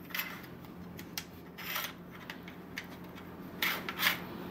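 Metal-on-metal scraping and rubbing as the spring guide of an LCT VZK-MSU airsoft AEG is pushed forward and slid out of the receiver, in a few short strokes.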